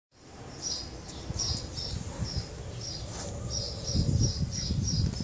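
A small bird chirping over and over, short high chirps about two to three a second. Under it there is a low, irregular rumble that swells about four seconds in.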